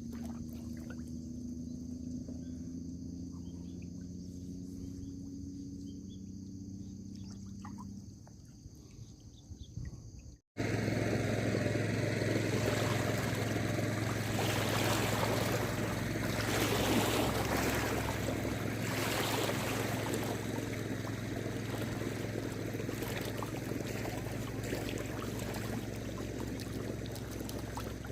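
A low motor hum with a faint high steady buzz, then, after a sudden cut about ten seconds in, water rushing and splashing loudly over a steady low engine hum.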